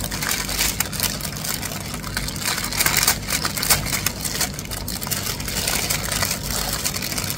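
Brown kraft-paper bag rustling and crinkling as it is handled and pulled open, a continuous dense crackle of stiff paper.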